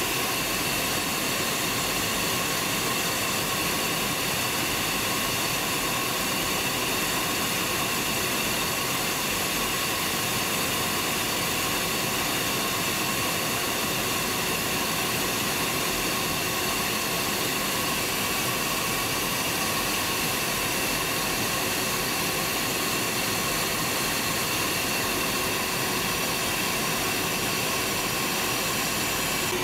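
Steady cockpit noise of a Tornado GR4 in cruise flight: a constant rush of engine and airflow noise with faint steady whines, unchanging throughout.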